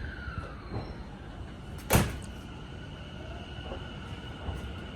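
Tobu Line commuter train at a station platform: a single loud thud of its sliding doors shutting about two seconds in, followed by a steady high tone. Low wind rumble runs underneath.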